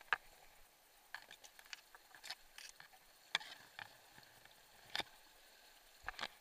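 Tall grass and brush stems rustling and crackling right against the microphone as people push through them, in scattered short, sharp crackles at irregular intervals.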